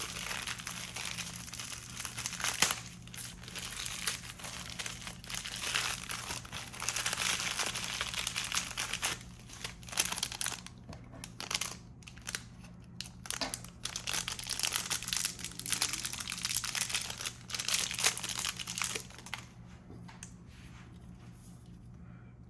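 Irregular crinkling and rustling of handled material, like plastic or paper being crumpled, over a steady low hum.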